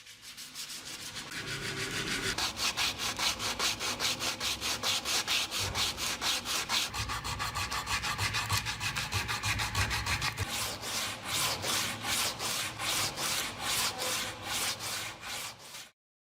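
Wood being hand-sanded with quick back-and-forth strokes, about four a second, building in loudness over the first couple of seconds and stopping abruptly near the end.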